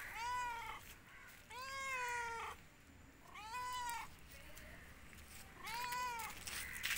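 Domestic cat meowing four times, each meow rising and then falling in pitch, the second one the longest.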